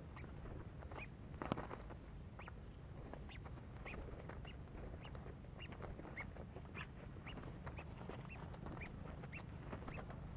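Birds calling: short calls repeated about twice a second, faint over a low steady rumble, with one sharp knock about a second and a half in.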